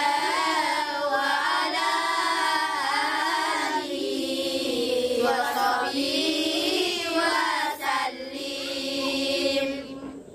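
Singing voices in a drawn-out, wavering melody like a chant, running without break and fading away near the end.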